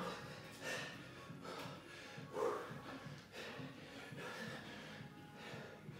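A man's hard exhalations and gasps during kettlebell reps, a breath every one and a half to two seconds, with a short grunt about two and a half seconds in, over faint background music.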